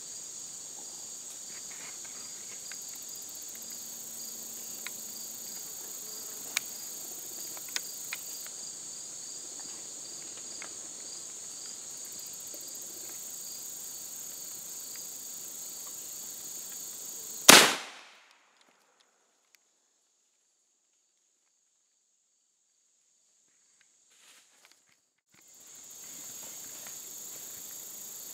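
Insects buzzing steadily, then about two-thirds of the way through a single loud, sharp shot from a .410 pump shotgun fired at a squirrel in a tree. After the blast the sound drops out almost entirely for several seconds before the insect buzz comes back.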